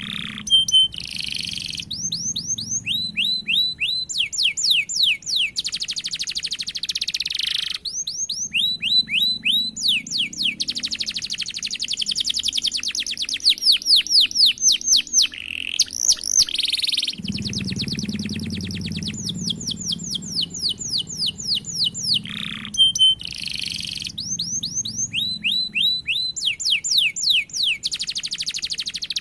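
Domestic canary singing steadily, with runs of quick down-slurred notes several times a second alternating with long, fast rolling trills.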